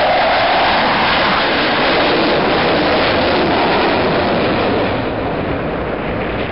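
Jet engine noise from the Blue Angels' four F/A-18 Hornets flying past in diamond formation, loud and steady, sinking slowly in pitch and easing slightly as the jets pull away.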